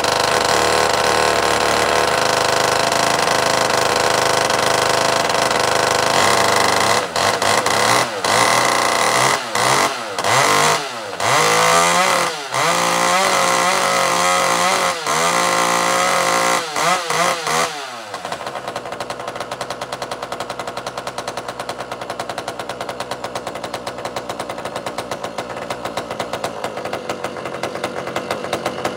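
Pioneer P-51 two-stroke chainsaw running at high revs, the throttle let off and opened again several times from about seven seconds in, then dropping to a steady idle at about eighteen seconds. The saw has a new carburetor.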